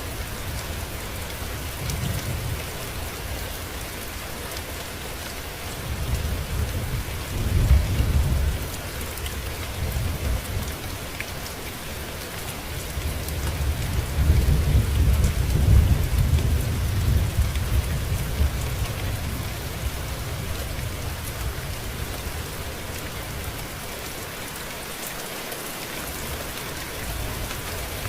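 Steady rain falling, with thunder rumbling low beneath it and swelling twice: once around seven seconds in and once, longer, around fifteen seconds in.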